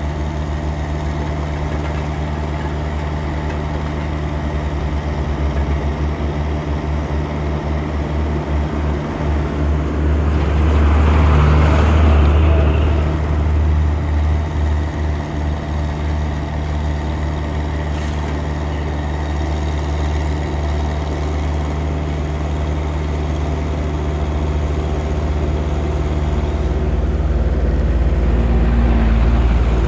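Heavy vehicle engine running steadily with a low drone. It swells louder about ten seconds in, then settles back.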